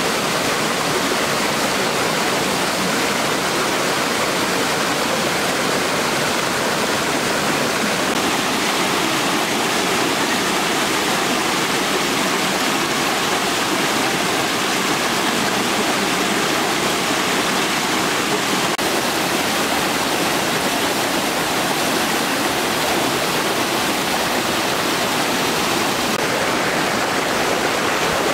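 Rushing river water, a steady, unbroken noise that does not change.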